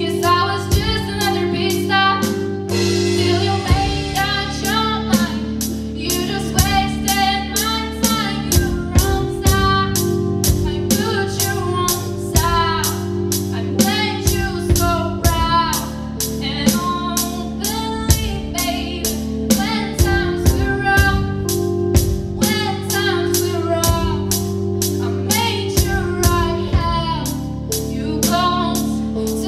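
A live band playing a song: a young woman's sung lead vocal over a stage keyboard, a drum kit keeping a steady beat and an electric guitar.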